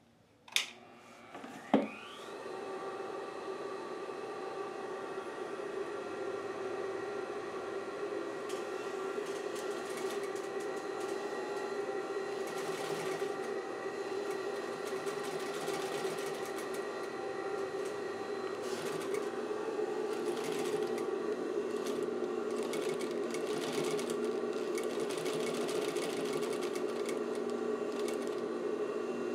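Clutch motor of a Pfaff 1245 industrial sewing machine switched on: a click about half a second in, then a clunk and a rising whine as it spins up, settling into a steady hum. From about eight seconds in the machine sews in short, uneven runs as the pedal engages the clutch.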